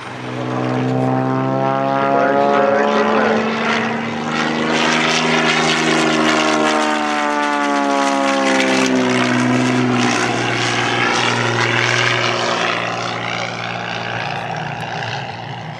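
Piston engine and propeller of a small single-engine aerobatic plane flying a display pass. The engine note rises in pitch and then falls away as the plane goes by.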